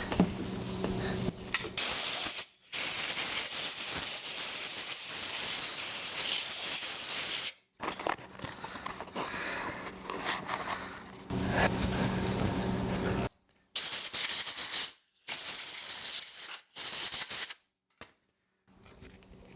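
Compressed air blowing debris away from around the carburetor intake of a push-mower engine: one long hissing blast of about five seconds, then several shorter blasts in the second half.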